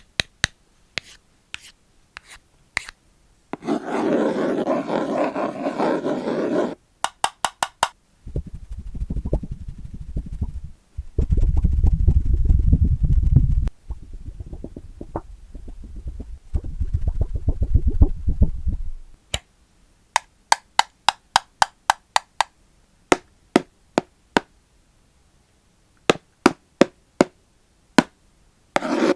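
ASMR trigger sounds made close to the microphone: scattered sharp taps, about three seconds of scratchy rubbing, then some ten seconds of deep muffled rumbling, like hands rubbing over the microphone, and a long run of single taps near the end.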